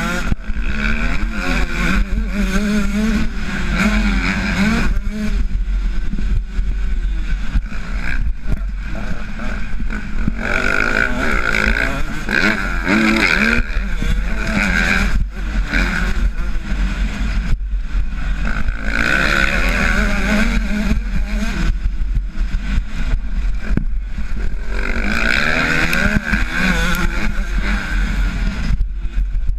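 Motocross bike engine heard from the rider's own bike, revving hard and falling away again and again as the throttle opens and closes through the turns and straights, over a steady low rumble of wind on the microphone.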